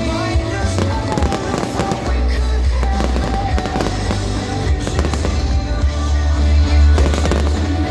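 Fireworks display: repeated bangs and crackles of bursting shells, heard over loud music with heavy bass.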